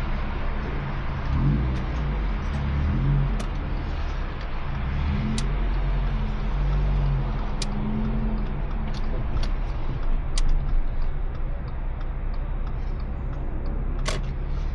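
Exhaust of a 2017 Subaru Impreza's flat-four engine with its mufflers removed (Nameless full muffler delete), heard inside the cabin with the front windows open. It runs at low revs with a steady low drone and a few small rises and falls in pitch. A few short clicks are scattered through, the sharpest near the end.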